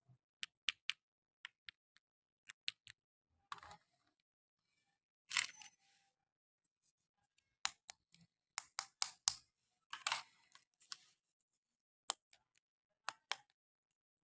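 Scattered sharp plastic clicks and short rustles of a toy and its packaging being handled, with dead silence between them; the loudest rustles come about five and ten seconds in, and a quick run of clicks falls around eight to nine seconds in.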